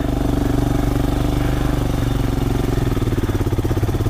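Motorcycle engine running steadily, with an even pulsing beat, over a steady hiss.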